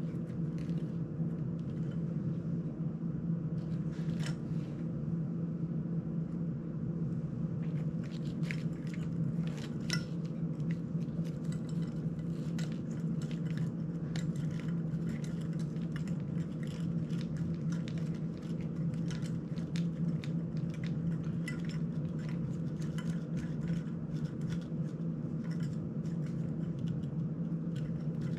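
Small clicks, ticks and clinks of a GEPRC CineLog35 drone's frame, prop guards and tiny screws being handled and fitted by hand during a frame and prop-guard repair. They come many times over a steady low hum, most thickly from a few seconds in.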